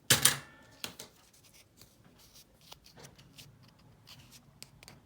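Handling noise as old coins are picked up and swapped: a loud brief rustle and clatter just at the start, a sharp click about a second in, then small clicks and rubbing.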